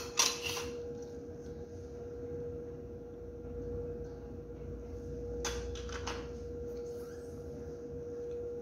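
A steady hum at one pitch, with brief clicks and rustles of a plastic Petri dish handled in gloved hands just after the start and again about five and a half to six seconds in.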